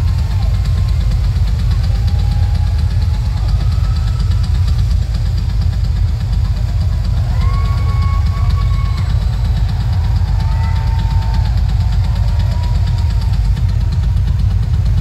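Drum solo on a rock drum kit, a fast, continuous double bass drum roll that rumbles heavily in an overloaded phone recording, with faint shouts from the crowd over it.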